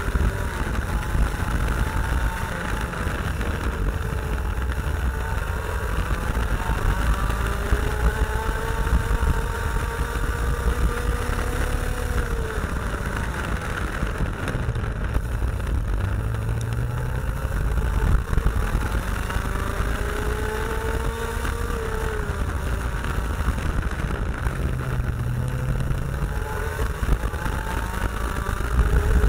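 IAME X30 125cc two-stroke kart engine running hard. Its pitch climbs slowly as the kart accelerates and drops sharply as it slows, three times over.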